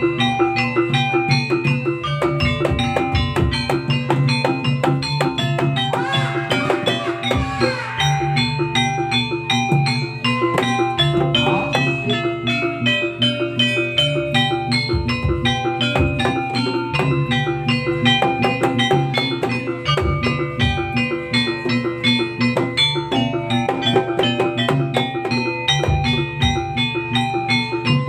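Jaranan accompaniment music from a gamelan-style ensemble: tuned gongs and metallophones striking a fast, repeating pattern over drums.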